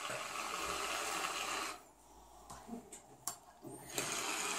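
Aerosol shaving foam spraying from the can into glass bowls: a steady hiss of just under two seconds, a few light clicks, then a second spray starting near the end.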